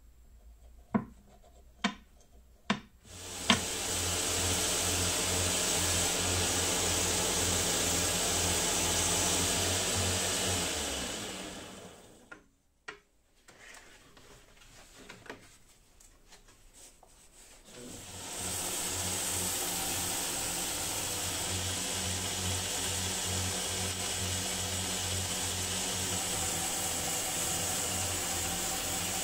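A few sharp taps, then a homemade 2x48 belt grinder runs steadily with a low pulsing hum and winds down about eleven seconds in. After a quieter stretch with a few knocks, it starts again about eighteen seconds in and runs steadily as a wooden handle blank is sanded on the belt.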